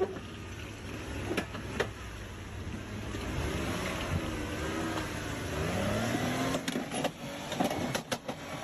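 MJX H12Y RC off-road truck's electric motor and gears whining, rising and falling in pitch as the throttle changes, with several sharp clicks and knocks, a few of them close together near the end.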